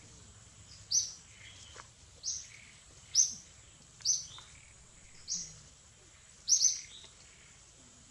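A bird calling with a short, high chirp repeated about once a second, two chirps close together about six and a half seconds in, over faint steady outdoor background noise.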